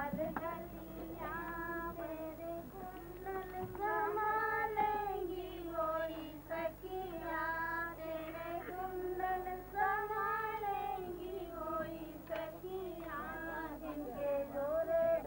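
A high female voice singing a slow melody in long, wavering held notes, with music, over a steady low hum.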